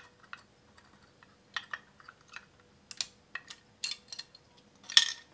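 Irregular small clicks and taps of metal parts in an opened hard drive being handled by hand, the loudest about three, four and five seconds in.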